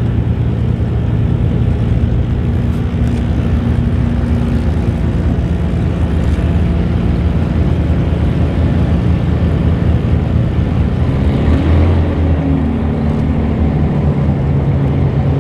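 Hawker Hurricane's Merlin V12 engine running at low power as the fighter taxis, its propeller turning, with a brief rise and fall in revs about twelve seconds in.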